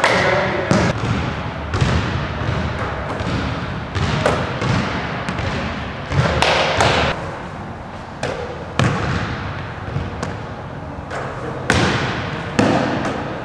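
Basketball bouncing on a hardwood gym floor and striking the hoop, a dozen or so irregular thuds, each echoing in the large gym.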